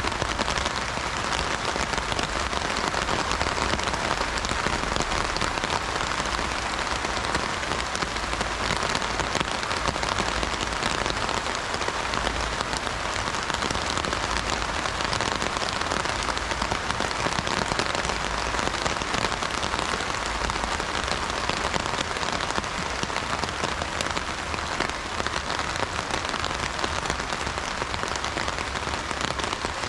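Heavy rain drumming steadily on an umbrella's fabric canopy, a dense, unbroken patter.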